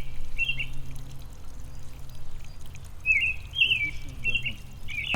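Small birds chirping in short falling calls, about six times, over a steady low rumble.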